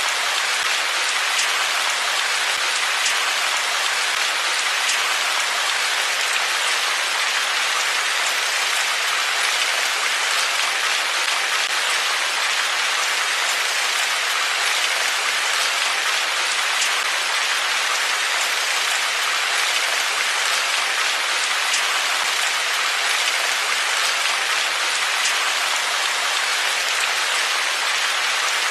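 Steady rain falling: an even hiss that does not change, with scattered faint ticks of individual drops.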